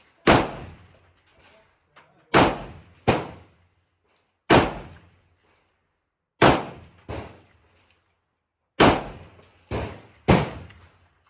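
Semi-automatic firearm fired nine times at an uneven pace, in ones and quick pairs. Each shot is a sharp, loud crack with a fading tail.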